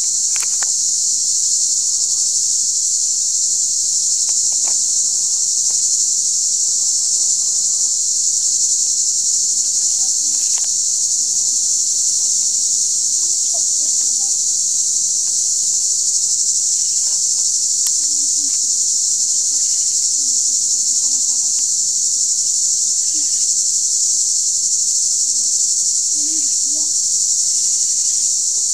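Loud, steady, high-pitched buzzing of an insect chorus that never lets up, with a few faint knocks and small low sounds of work underneath.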